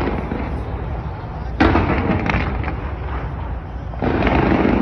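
Fireworks bursting: a sharp bang about one and a half seconds in, followed by crackling, and another loud burst of crackle near the end, over a steady low rumble.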